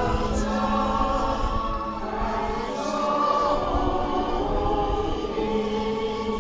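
A group of voices singing a hymn together, with a low wind rumble underneath.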